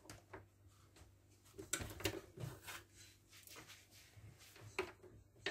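Electric dough-kneading machine running quietly, mixing butter into flour, with a low steady hum and a few scattered light knocks.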